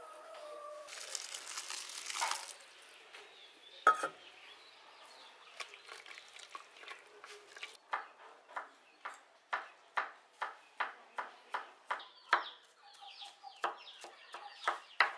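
Chef's knife chopping garlic cloves on a wooden cutting board: a steady run of sharp strikes, about two a second. A brief hiss of noise comes at the start.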